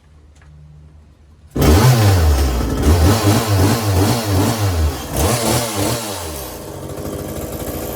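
Echo chainsaw's two-stroke engine running on its new replacement carburetor, revved up and down several times; it comes in suddenly about one and a half seconds in. It runs and revs cleanly after carburetor adjustment, no longer flooding.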